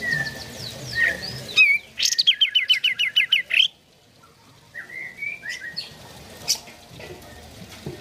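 Kapas tembak bulbul singing: scattered chirps, then a loud, rapid run of about a dozen falling notes lasting around two seconds, and after a brief pause some short warbled phrases.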